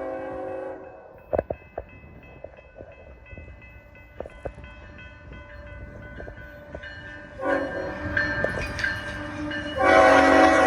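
Freight locomotive horn sounding a chord of several tones: one blast cuts off just under a second in, and another starts about two-thirds of the way through, getting louder near the end. In between, the passing train gives sharp clicks and clanks over a low rumble.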